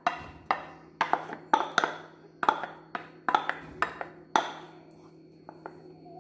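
Metal spoon clinking and scraping against a bowl and the rim of a steel pan while scooping out beaten egg whites, about two knocks a second. After about four seconds the knocks thin out to a few light ticks.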